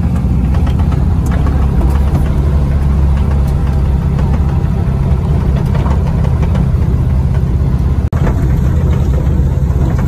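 A 1971 VW Beetle's air-cooled flat-four engine running steadily as the car drives, heard from inside the cabin. There is a brief dropout about eight seconds in.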